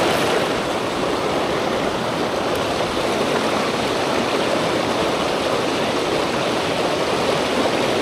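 Mountain stream rushing over boulders and small rapids, a steady, unbroken sound of flowing water.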